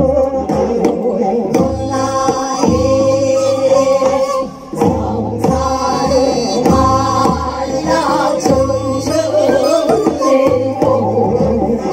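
Korean Namdo folk singing: women's voices singing with wide, wavering vibrato, accompanied by regular strokes of a buk barrel drum, with a brief break about four and a half seconds in.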